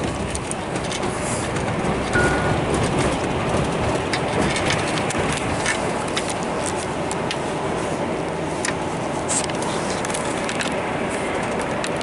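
Cabin noise of a moving vehicle: a steady rumble with frequent light clicks and rattles, and a brief squeak about two seconds in.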